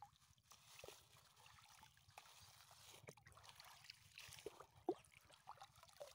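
Faint splashing and trickling of shallow river water as a thin plastic bag is dipped in and filled, with water dribbling back out of the bag. One sharper splash comes about five seconds in.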